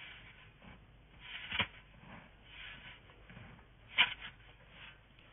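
Snow shovel scraping and digging into deep snow in repeated strokes, with two sharper, louder scrapes about one and a half seconds in and again near four seconds.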